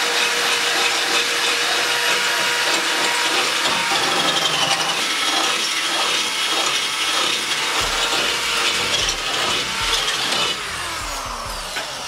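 Cordless power drill running steadily as it bores a hole through the car's sheet metal for a bonnet pin. The pitch sinks near the end.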